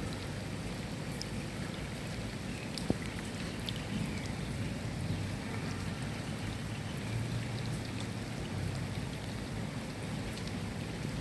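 Steady rain falling, with scattered individual drops ticking over the hiss and a low rumble underneath; one sharper click about three seconds in.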